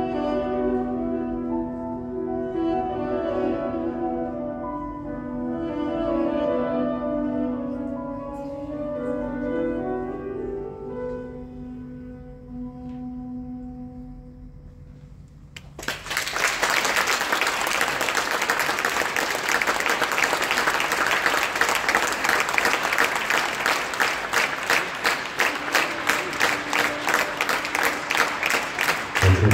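Armenian duduk playing a slow melody with piano accompaniment, ending on a long low held note that fades away. About fifteen seconds in, the audience breaks into steady applause, louder than the music and lasting to the end.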